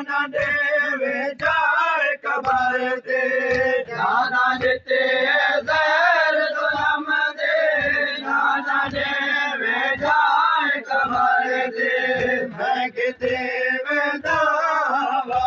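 Male voices chanting a noha, a Shia mourning lament, with thuds of hands striking chests (matam) in a steady beat roughly once a second.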